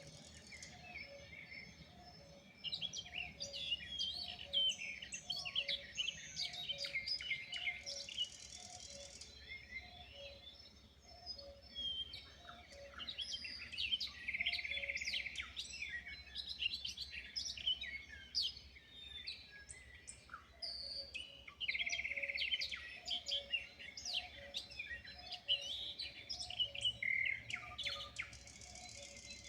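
Several wild birds singing and chirping at once, in many overlapping short calls and quick buzzy trills. Beneath them, a low note repeats steadily about twice a second.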